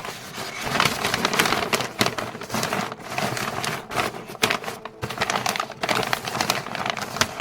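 Packing material being handled close by, a dense crinkling and crackling, with a few short pauses.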